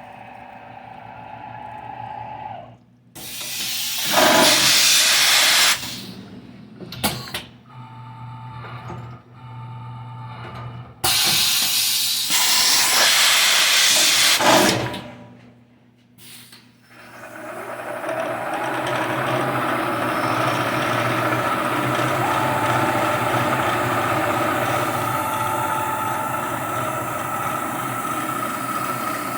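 Two loud bursts of compressed-air hiss, the second longer, from the Shizuoka AN-S CNC milling machine between operations, then the mill's spindle starts and runs steadily with a high tone.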